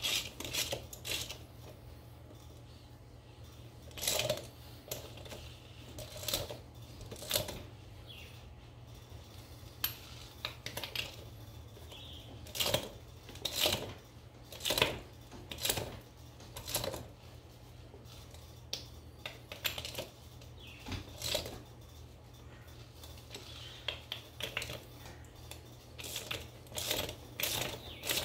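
Hand socket wrench clicking and metal nuts clinking as the wheel nuts are run down onto a tractor's front wheel hub: irregular sharp clicks, often in short clusters, over a steady low hum.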